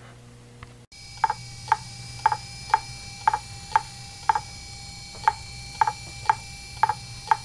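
Powered Fujitsu 2.5-inch laptop hard drive clicking sharply and evenly about twice a second, some clicks doubled, over a steady whine. Such repeated head clicks are typical of a failing drive. Before it, for about the first second, only a faint low hum.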